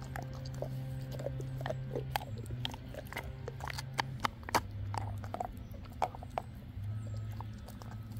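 Dog chewing and biting on a raw lamb shank, with irregular wet clicks and crunches, over a steady low hum.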